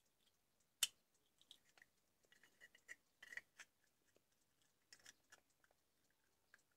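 Faint handling sounds of a small plastic phone charger being turned over in the hands: one sharp click about a second in, then scattered light clicks and rubs of the plastic casing.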